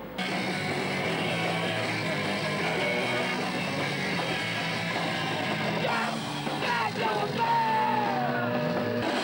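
Punk rock music with yelled singing, cutting in suddenly at the start.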